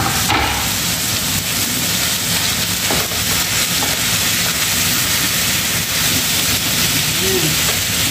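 Liver and vegetables sizzling in a frying pan while being stirred with a wooden spatula, a steady frying hiss with a few light scrapes.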